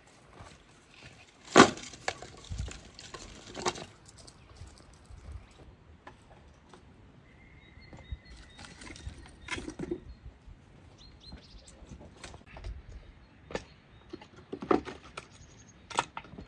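Dry wood scraps knocking and clattering in a series of separate sharp hits as they are handled and set down by a brick oven, the loudest about a second and a half in.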